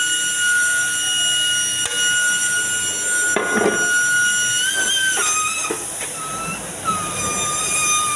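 A compressed-air tool whistling high and steady over a hiss. The pitch wavers and breaks off about five seconds in, then comes back lower in short spurts. A few knocks of handled parts sound around the middle.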